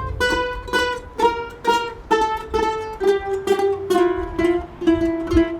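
A group of ukuleles strumming a song together in a steady rhythm, a bit more than two strums a second, the chords stepping down in pitch.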